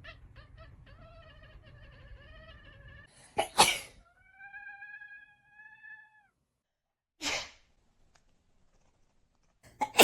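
A cat sneezing: a sharp sneeze a few seconds in, then a long meow of nearly two seconds, a second sneeze, and a third right at the end.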